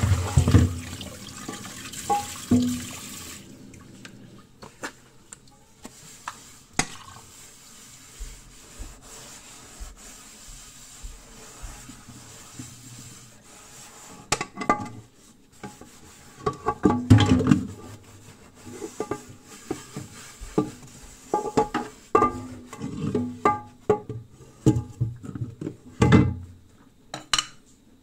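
Running water that cuts off about three and a half seconds in, followed by irregular clattering and knocking of kitchenware being handled, busiest in the second half.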